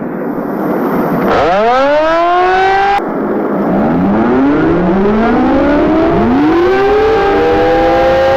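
Outdoor warning sirens winding up. A rising wail climbs and levels off, then after a sudden break about three seconds in, several sirens start one after another. Their rising tones overlap and settle onto a steady pitch near the end.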